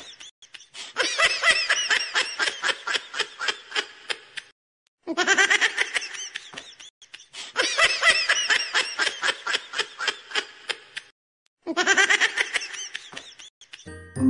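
High-pitched laughter in quick pulses: the same laugh clip repeats three times with short silent gaps between.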